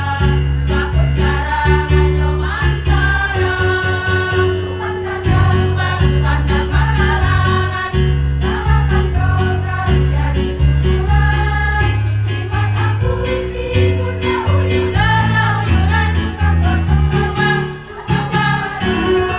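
Women's choir singing in harmony, led by a conductor, over an accompaniment with a strong bass line stepping from note to note. The music dips briefly near the end.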